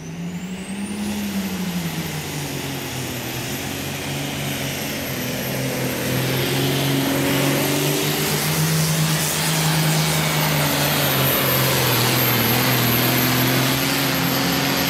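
Diesel engine of a John Deere 8530 pulling tractor running at full load while pulling the sled. Its note climbs in the first second, dips, then holds with small swells and grows steadily louder, with a high thin whine above it throughout.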